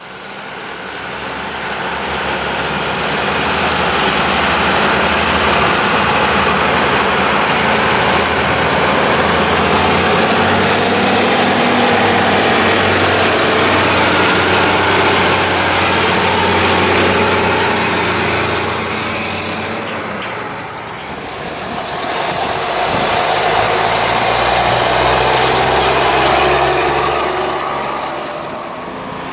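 Vintage Brockway trucks' diesel engines running loud and close as the trucks drive past one after another. The sound builds over the first few seconds, eases briefly about two-thirds through as one truck clears, then swells again with the next before easing near the end.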